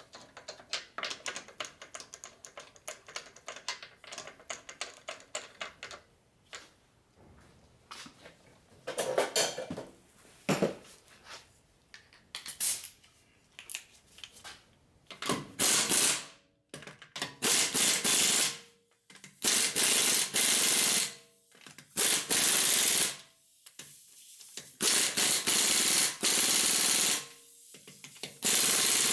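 Impact wrench running the wheel bolts in: about six short bursts of rapid hammering, each a second or two long, in the second half. Before that, a stretch of rapid light clicking as the wheel is fitted.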